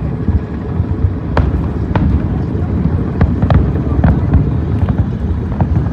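Aerial fireworks shells bursting over water: a continuous low rumble of booms with sharp pops and crackles every half second or so.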